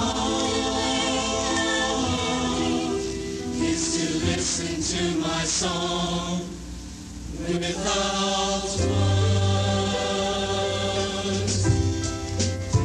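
Mixed-voice show choir singing in harmony, holding sustained notes, with a brief dip in loudness about halfway through.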